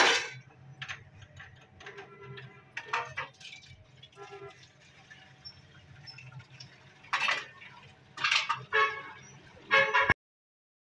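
Indistinct voices and short household noises come and go over a steady low hum, then all sound cuts off suddenly about ten seconds in.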